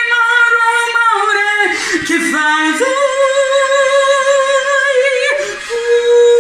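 A woman singing a ballad in long held notes with vibrato, sliding between them and sustaining the last one.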